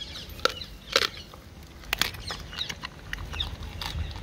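Dog eating from a metal bowl, chewing with a series of irregular sharp crunches. A low rumble builds near the end.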